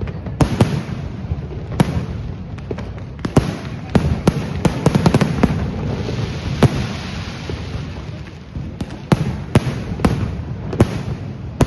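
Fireworks and firecrackers going off: a run of sharp bangs at irregular intervals, with a quick cluster of cracks about five seconds in, over a steady background of noise.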